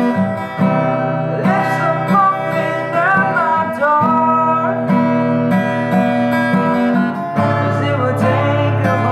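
Acoustic guitar played in a steady, even pattern, its chord changing about seven seconds in, with a voice singing a melody over it for a few seconds near the start and again near the end.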